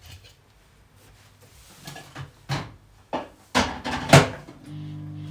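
Microwave oven door being opened and shut, a few sharp clunks and clicks, then the microwave starts running with a steady hum near the end.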